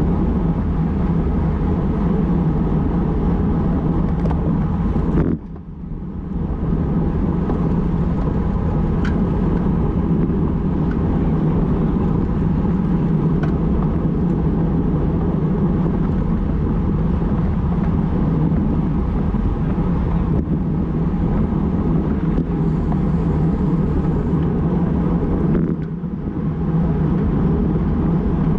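Steady rushing wind noise on a bike-mounted action camera's microphone, with road noise from a road bike moving at about 45 km/h. The rush drops off briefly about five seconds in and again near the end.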